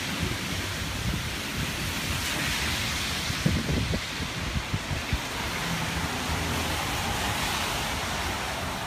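Steady hiss of a wet city street: rain and traffic noise on wet pavement. A few short low thumps come about halfway through.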